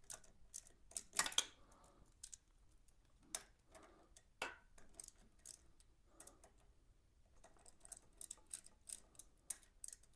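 Faint, irregular metal clicks from a small ratchet wrench and 8 mm bolts being loosened and worked back and forth, turning into a quicker run of light ticks near the end.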